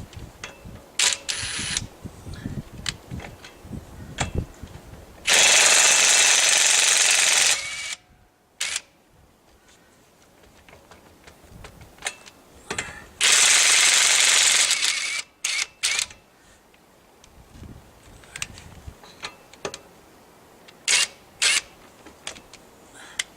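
Ridgid 18V brushless half-inch impact wrench hammering in two bursts of about two seconds each, with a few brief blips and clicks of the tool between them.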